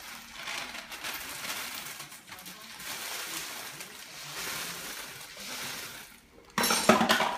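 Ice being poured from a plastic container into a plastic zip-top bag: a steady rattling hiss of ice sliding into the bag, then a sudden louder burst near the end.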